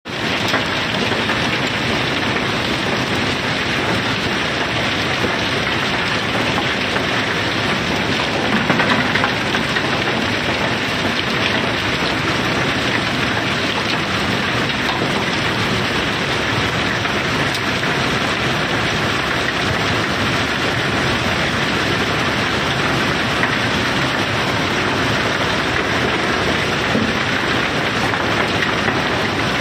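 Mass of river pebbles pouring and sliding down through a barge's discharge opening: a continuous dense clattering rush of stones, slightly louder for a moment about nine seconds in.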